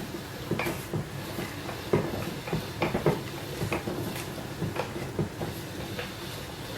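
Hand-cranked pasta machine turning, rolling a sheet of dough through its rollers at setting 5, with a steady low rumble and irregular clicks and knocks from the crank and gears.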